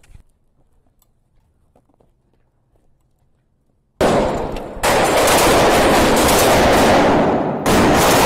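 Automatic rifle fire at close range breaks out suddenly about four seconds in, very loud and rapid. It comes in long bursts with two brief breaks, the last shortly before the end. Before it starts there is little to hear.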